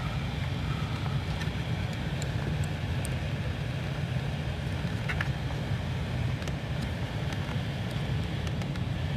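Heater blower fan motor of a 2008 Vauxhall Corsa D running steadily, a low even hum of the motor and moving air; the mechanic suspects the motor itself is failing, since its speed intermittently drops or it stops altogether. A few faint clicks come from hands handling the plastic wiring connector on the fan housing.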